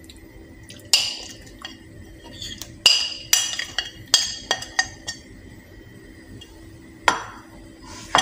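A spoon scraping and clinking against a china plate, in scattered clinks about a second in, a busy run from about three to five seconds, and again near the end.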